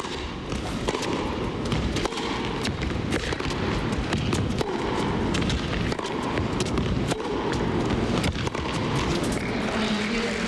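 Arena crowd clapping and calling out, a steady noise dotted with many irregular sharp claps.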